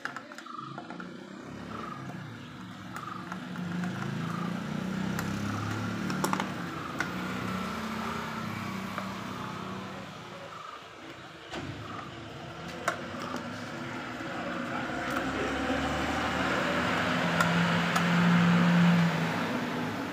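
A motor vehicle engine runs nearby. It dips briefly midway, then grows louder to its loudest near the end. A few sharp clicks sound over it.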